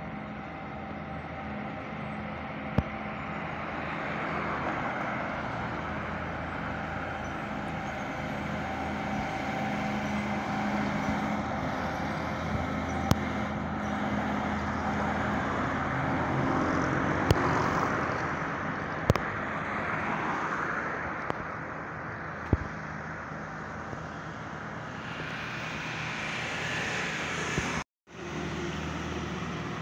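Heavily loaded diesel trucks driving past on a road, their engines running steadily and the sound swelling as each one goes by, with a few sharp clicks over it. The sound cuts out briefly near the end.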